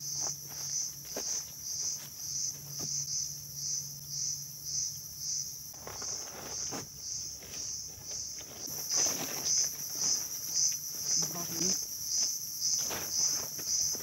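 Insects chirring in a steady, high-pitched pulse, about two pulses a second, growing louder about two-thirds of the way through. Scattered rustles and knocks from a nylon tent being spread out and pitched.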